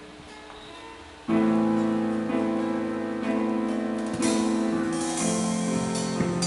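A band of guitar, bass guitar, drums and keyboard playing. A soft sustained note gives way to the full band coming in loudly about a second in, with cymbals joining about four seconds in.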